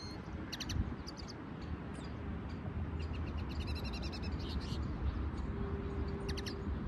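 Caged songbirds, one of them a linnet hybrid, giving short high chirps, with a quick run of repeated notes around the middle. A low wind rumble runs underneath.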